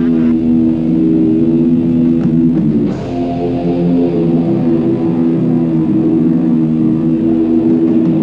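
Rock music led by electric guitar, playing sustained chords that change about three seconds in.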